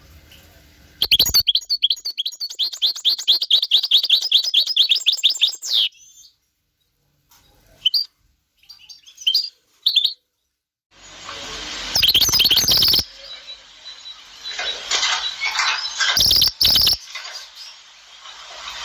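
Songbirds for sale singing: a fast run of repeated high chirps for about five seconds, a few short scattered calls, then more dense song to the end.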